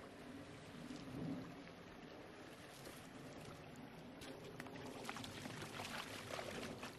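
A shallow stream running over rocks, with a steady rush of water. In the second half come many quick splashes as a small dog wades through it.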